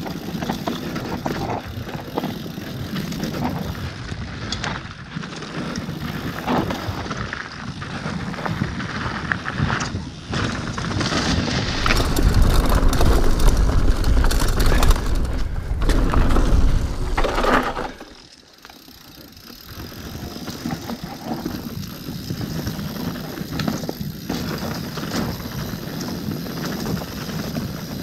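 Mountain bike descending a dirt singletrack: tyres rolling over dirt and roots, with the chain and bike parts rattling over bumps. It grows louder with a deep rumble about twelve seconds in, then drops sharply about six seconds later.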